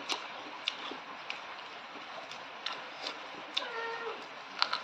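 Close-up mouth sounds of someone eating pork and rice with the fingers: irregular wet lip smacks and chewing clicks, about eight in all. A short high-pitched call is heard about three and a half seconds in.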